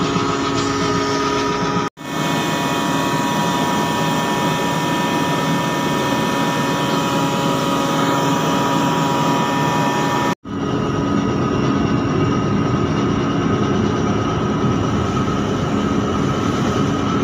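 Steady drone of a ship's deck machinery as the mooring winch reels in the mooring rope, with a few steady tones running through it. The sound cuts out abruptly and briefly twice, about two and ten seconds in, and its tone shifts a little after each cut.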